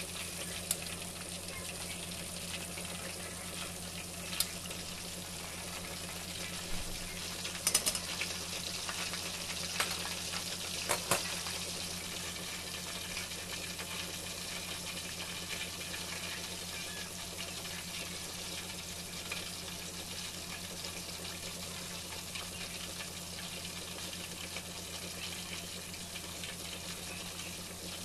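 Fish fillets deep-frying in hot oil in a stainless steel pot, a steady sizzle with a few sharp clicks between about four and eleven seconds in. A steady low hum runs underneath.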